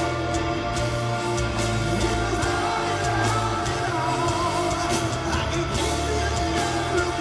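Live heavy rock band playing, heard from the audience: a male singer sings into a microphone over distorted electric guitar and a full drum kit, all through a loud concert PA.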